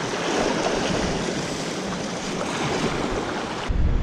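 Sea surf washing over rocks: an even hiss mixed with wind on the microphone. Near the end it changes suddenly to a deep wind rumble.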